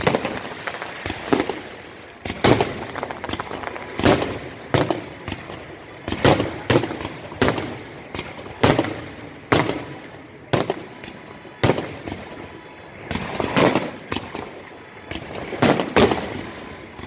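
A fireworks salute: aerial shells bursting in quick succession, a sharp bang about every second, each trailing off in an echo.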